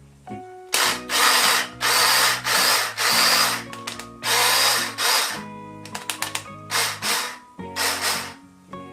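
A small electric motor run in short bursts, switched on and off about seven times, with a quick run of clicks in between, over background music.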